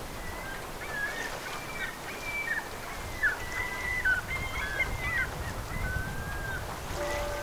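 A flock of waterbirds on the bay calling, many short overlapping calls in quick succession, over a low rumble of wind and water. Near the end a slow peal of church bells begins.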